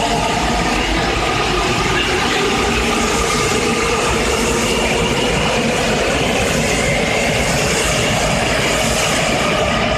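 Seoul Metro Line 4 electric subway train pulling out of the station and accelerating away: steady running noise of motors and wheels, with a steady whine through it.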